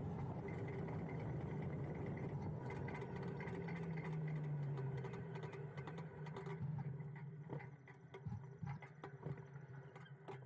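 Electric moped's motor whining steadily over wind and road noise while riding, then easing off as the bike slows to a stop about two-thirds of the way through. Sharp clicks rattle in the second half from a loose camera mount.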